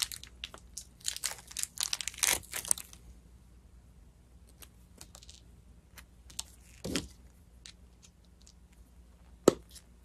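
Small plastic bag crinkling as a pin-back insignia is taken out of it, then a few light clicks and knocks of small metal pieces being handled, with a sharp click near the end.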